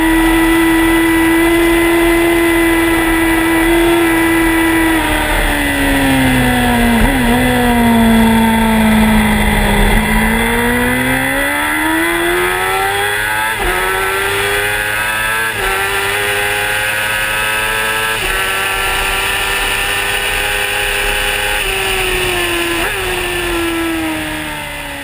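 2005 Yamaha R1's inline-four engine at high revs. It holds a steady pitch, then falls away with a downshift blip as the bike slows. It then climbs through several quick upshifts, each a sudden small drop in pitch, and falls again with another downshift near the end.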